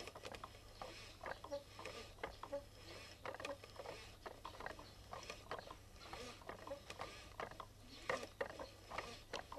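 Faint, irregular clicking and knocking of a wooden hand loom being worked, over a low steady hum.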